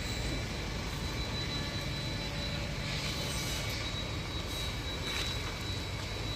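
Steady background rumble and hiss with a faint high-pitched whine, and a few soft clicks in the middle.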